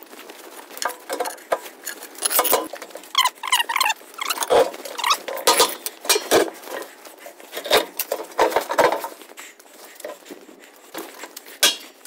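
Steel oil drum with a propane tank inside being shuffled a few inches across a concrete floor by hand: irregular scrapes and knocks of metal, with a few short squeaks about three to five seconds in.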